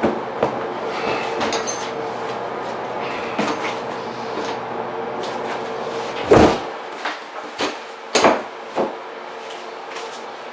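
Handling noises at a door: the doorknob rattling and the door knocking as a stuffed teddy bear is hung on the knob. There is soft rustling of plush toys, sharp knocks with the loudest thumps about six and eight seconds in, and a steady hum underneath.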